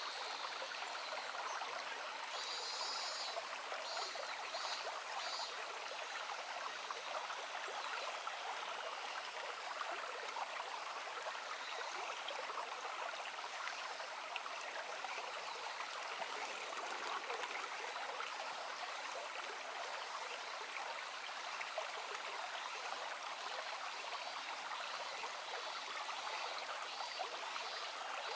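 Shallow stream babbling and trickling steadily over rocks. A faint, very high chirp repeats about once a second through the second half.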